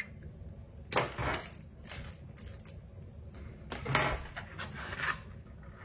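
Small phone-repair tools and their packaging being picked up and handled on a table: a few short knocks and rustles, the loudest about a second in and about four seconds in.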